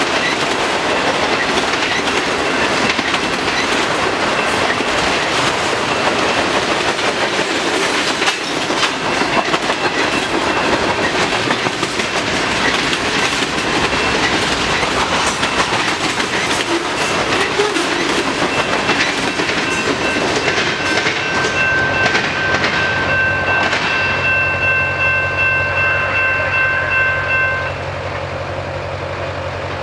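Freight cars of a long autorack train rolling past a grade crossing, their wheels clicking over the rail joints. High steady ringing tones join about halfway through. The last cars clear near the end, the noise drops, and a waiting road vehicle's engine is left idling.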